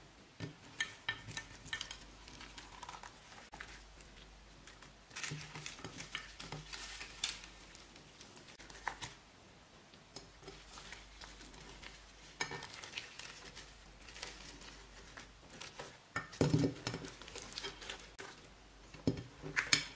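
Hands kneading and pressing glittery pink slime mixed with beads and sequins in a glass baking dish: uneven wet squishes, crackles and small clicks, with the loudest squelches coming in a couple of bursts near the end.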